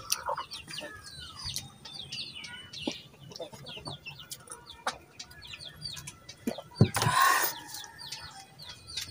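Chickens clucking, with small birds chirping throughout and one louder, brief burst about seven seconds in.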